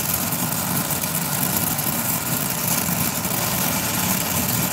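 Brazing torch flame burning steadily with a rushing, rumbling sound as it heats a brazed copper joint on a refrigerator's sealed system until the filler metal melts and the tube can be pulled off.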